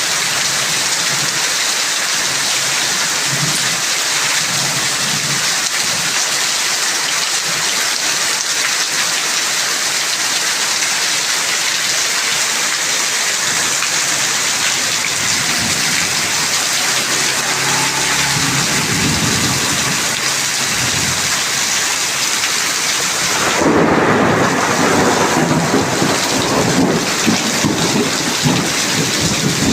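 Heavy rain pouring down steadily. Thunder rumbles low from about halfway through, with a louder rolling rumble starting in the last quarter.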